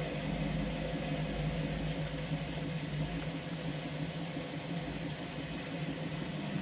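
Ariston washing machine running a wash cycle: a steady motor hum with the drum turning, even and unbroken.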